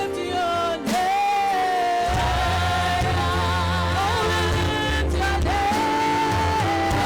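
Live gospel worship music: a sung melody holding long, wavering notes over sustained chords, with a low bass line that comes in about two seconds in.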